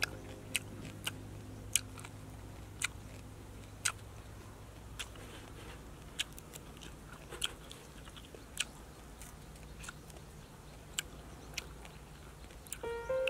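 A person biting and chewing crisp fried pork: sharp, irregular crunches and mouth clicks over a low steady background. Soft background music fades out at the start and comes back near the end.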